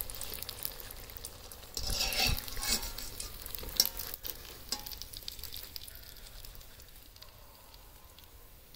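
Spring rolls sizzling as they deep-fry in oil in a steel kadai, with a wire-mesh skimmer scraping and clinking against the pan as the rolls are turned and lifted out. The sizzling dies down near the end.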